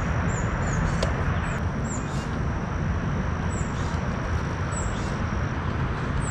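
Steady low rumble of wind on the microphone over open water, with a small bird giving short high chirps about once a second and a thin high steady tone that stops about five and a half seconds in.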